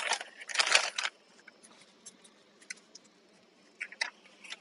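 Paper rustling and crinkling in two short bursts in the first second as a sandwich wrapper or napkin is handled, then scattered faint clicks and light taps.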